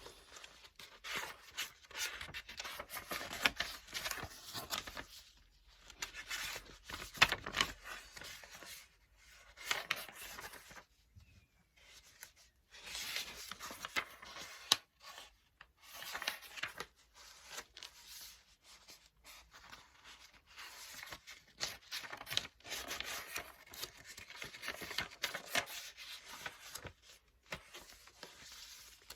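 Book pages being turned and flipped, a crisp paper rustle that comes in bursts of one to several seconds with short pauses between them, and an occasional sharp snap of a page.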